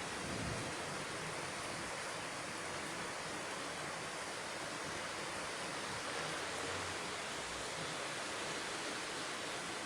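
Steady, even rushing hiss of a thunderstorm, with no distinct thunderclap.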